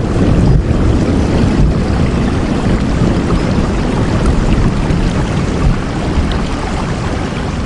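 Steady heavy rain: a dense, even hiss, strongest in the low end.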